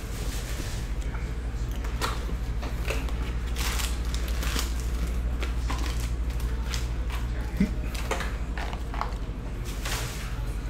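A cardboard hobby box is handled and opened, and foil trading-card packs are pulled out and stacked. The result is scattered rustles, crinkles and light taps over a steady low hum.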